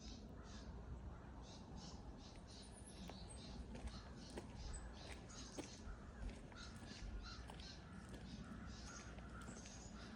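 Faint, rapid high-pitched squeaking or chirping from an unseen animal, repeated two to three times a second, over a low steady rumble.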